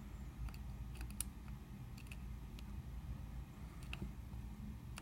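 A lock pick clicking faintly against the pins inside a cheap bike lock's cylinder as the pins are probed one at a time: a handful of small, scattered clicks over a low handling rumble.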